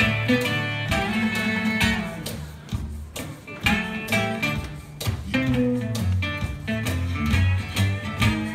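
Acoustic guitar picking a blues instrumental, with a harmonica played into the microphone over it.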